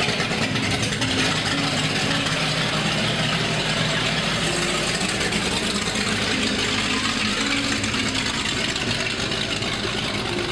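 Motorboat engine idling with a steady low hum as the boat eases slowly out of its slip.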